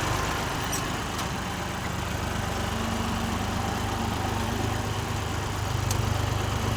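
A vehicle's engine running steadily, with a low drone under a constant rushing noise.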